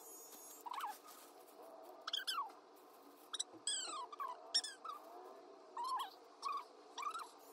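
Sound sped up five times: a steady hum from an electric pet clipper, with about ten short, squeaky chirps over it, most of them falling in pitch.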